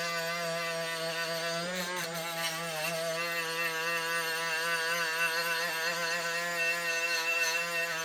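Battery-powered grinder with an abrasive wheel running steadily under load, its whine dipping and wavering a little as the wheel is pressed against rusty, painted steel to strip it.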